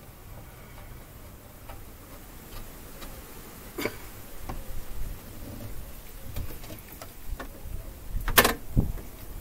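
Scattered small clicks and knocks of hands fitting liquid-tight conduit connectors to a metal electrical box, with the sharpest knock about eight seconds in.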